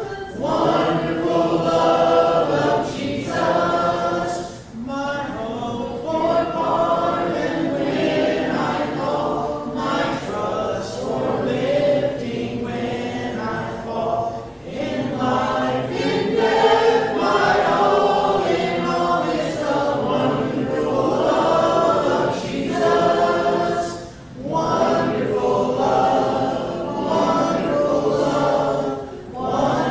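Congregation singing a hymn together unaccompanied, with no instruments. Short breaks between phrases come about 5 and 24 seconds in.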